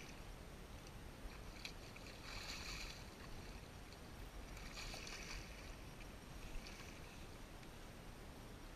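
A hooked silver (coho) salmon splashing at the surface in shallow water: three short splashes, about two and a half, five and nearly seven seconds in, over a low steady rumble.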